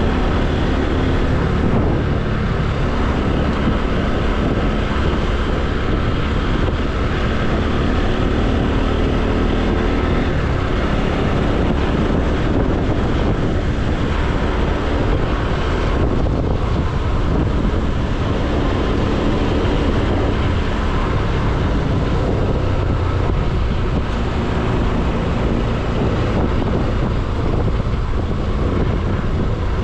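Motorcycle engine running steadily under way, with wind buffeting the camera's microphone.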